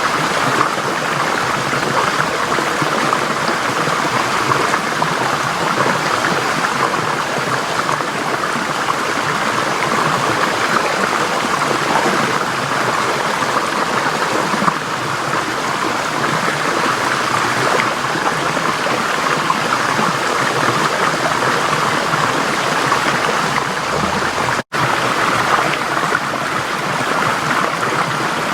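Forest stream flowing: a steady rush of water that cuts out for an instant about three-quarters of the way through.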